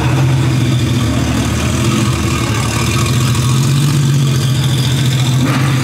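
Car engine running at a steady idle.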